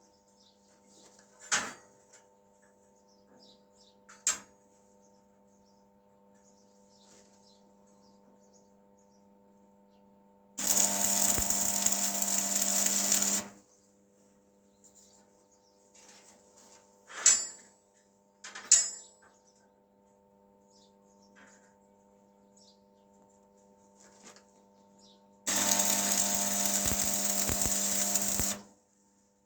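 A power tool runs twice, each time for about three seconds, with a steady motor tone under a dense hiss. A few sharp metallic clicks and knocks come between the runs.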